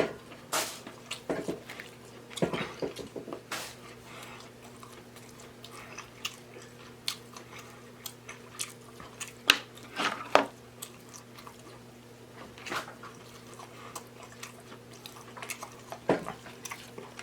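Close-miked chewing and mouth smacking while eating a seafood boil, with scattered sharp clicks and crunches, over a steady low hum.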